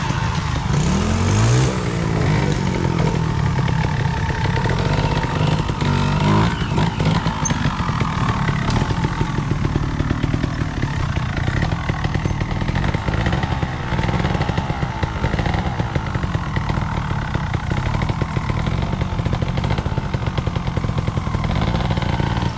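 Trials motorcycle engine revving up and down in quick blips, then running at low revs with a fast, even firing pulse.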